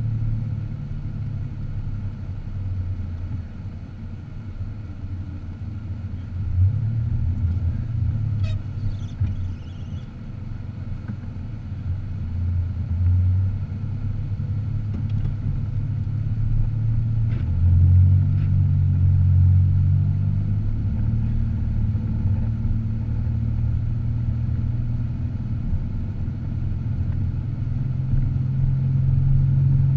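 Car driving: steady low engine and road rumble, the engine note shifting up and down several times as speed changes, with a few faint ticks.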